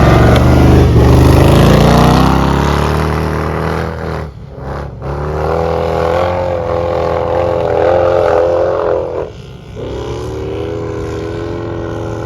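Off-road vehicle's engine revving hard, climbing in pitch over the first two seconds, then held at high revs. It drops away briefly about four seconds in and again near nine seconds in before revving up again.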